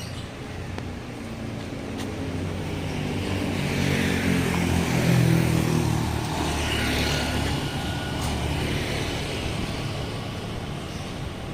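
A bus engine running and passing close by, growing louder to a peak about five seconds in and then fading away.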